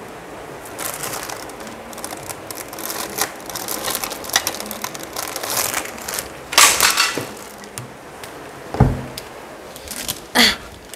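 Irregular clicks, scrapes and rustles of things being handled while preparing food, with a louder scrape or crunch about six and a half seconds in and a dull thump about nine seconds in.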